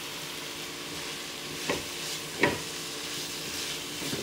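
Onions, garlic and spice paste sizzling in oil in a nonstick wok as a silicone spatula stirs them, the masala fried through. Two sharp knocks about two seconds in, the second the louder, and a lighter one near the end.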